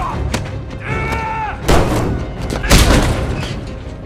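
Fight sound effects: punches and body blows landing as heavy thuds, the loudest about two and three seconds in. A short shout comes just before them, over a low music bed.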